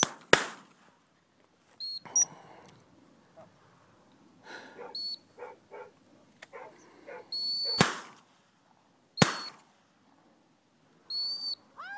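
Four short, high dog-training whistle blasts, the third held longest, mixed with three loud, sharp cracks that ring briefly, one just after the start and two near the end.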